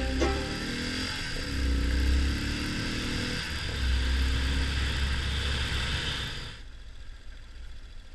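Yamaha XT 600 single-cylinder four-stroke motorcycle engine running while riding, its pitch rising and falling with the throttle, under heavy wind rush. The sound drops off abruptly about six and a half seconds in.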